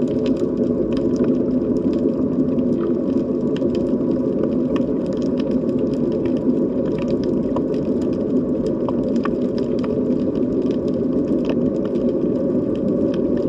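Underwater sea ambience: a steady low drone with a few faint held tones, under many scattered sharp clicks.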